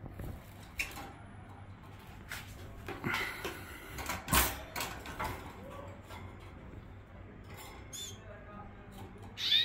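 Young canaries giving a few short, squeaky chirps, mixed with scattered clicks and taps. The loudest is a sharp tap about halfway through, and the clearest chirp comes near the end.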